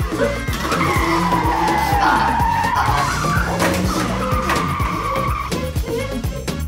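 Background music with a steady beat. A long wavering squeal, like tyres skidding, sounds over it in the first half, and a shorter one follows later.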